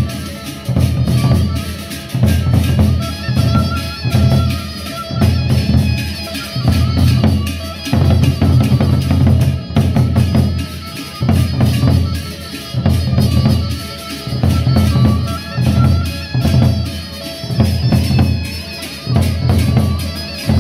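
Gendang beleq, the large double-headed barrel drums of Lombok's Sasak people, beaten with sticks by a drumming ensemble. The heavy drumming swells and falls in pulses about once a second, with bright clattering strokes on top.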